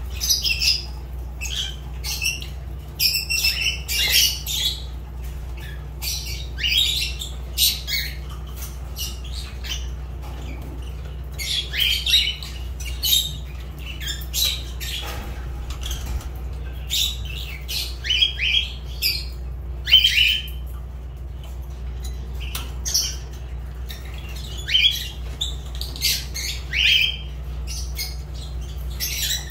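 Fischer's lovebirds calling: short, shrill squawks and chirps in irregular clusters, with brief lulls between, over a steady low hum.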